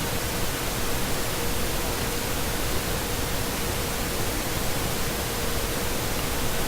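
Steady, even hiss of background noise, with a faint steady tone underneath.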